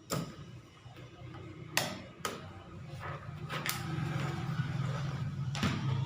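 Several sharp clicks and knocks from handling a laptop on a work surface, over a low steady hum that grows louder about halfway through.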